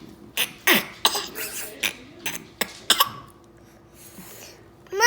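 A pet's nose making a string of short, sharp snorts and sneeze-like huffs, about seven in three seconds. Near the end comes a loud, short call that rises in pitch.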